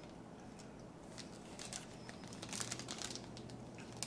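Faint crinkling and light clicks of a plastic cookie wrapper being handled, growing busier near the end, over a low steady room hum.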